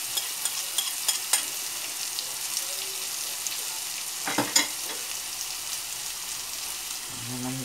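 Chopped onion, garlic and green bell pepper sizzling as they fry in a pot, with a wooden spoon stirring and clicking against the pot; a louder clatter of knocks comes about four and a half seconds in.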